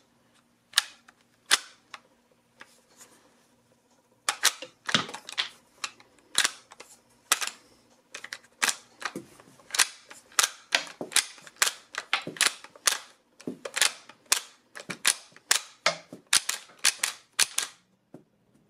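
Lever action of a JC Higgins Model 46 (Marlin 56 Levermatic) .22 rifle worked over and over: a long run of sharp metallic clicks and clacks as the bolt opens and closes, cycling .22 Short cartridges from the magazine into the chamber.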